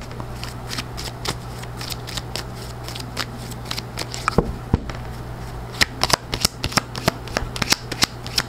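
A tarot deck being shuffled by hand: a run of quick, light card clicks and flicks, sparse at first and busier in the last few seconds, over a low steady hum.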